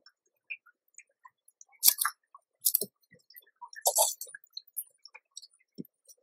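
Dry twigs and crumpled newspaper in a nest crackling and rustling as a mother rat moves through it. There are three short, sharp bursts about 2, 3 and 4 seconds in, with faint clicks and ticks between them.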